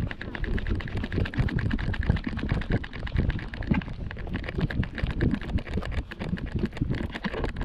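Rapid, irregular clicks and knocks over a low rumble: rubbing and bumping noise from a camera mounted on a small dog's harness as the dog walks.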